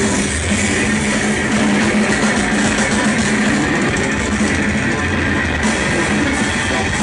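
Math-rock band playing live and loud: electric guitar over bass and drums, heard from within the audience.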